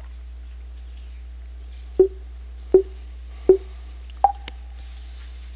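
Chess.com Puzzle Rush start countdown: three short, identical beeps about three quarters of a second apart, then a single higher beep that signals the first puzzle has begun.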